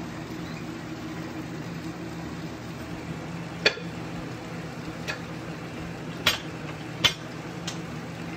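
A barbell being loaded: metal weight plates and collars clinking in a few sharp, separate knocks, three louder and two fainter, in the second half, over a steady low hum.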